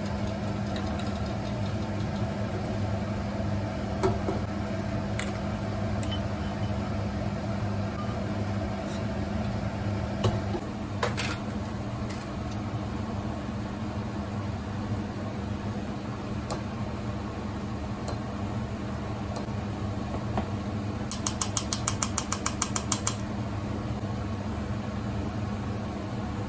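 Steady mechanical hum of a running motor or fan, with a few scattered knocks and a rapid run of about a dozen clicks lasting two seconds near the end.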